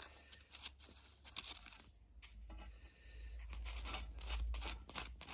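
Light metal scraping and clicking as a screw is fitted with a screwdriver to hold the bottom blade on a Suffolk Punch lawnmower's blade carrier. A low rumble swells about three seconds in and fades near the end.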